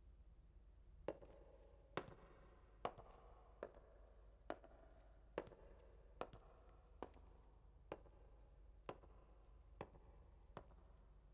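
Slow, even footsteps of a woman walking on a hard floor, about one step a second, each step a sharp click that echoes through a large, empty concert hall.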